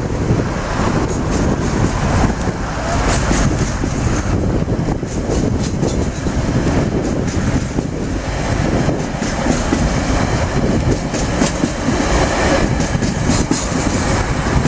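Freight train wagons rolling steadily across a steel rail bridge, their wheels rumbling and clattering on the rails.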